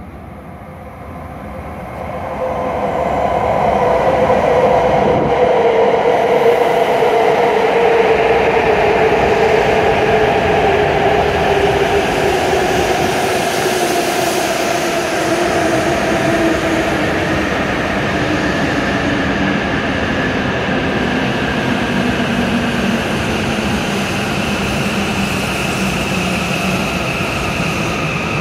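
W7 series Shinkansen train pulling into the platform and braking: a loud rush of wheels and air that builds over the first few seconds as the train comes alongside, with a whine that falls slowly in pitch as it slows.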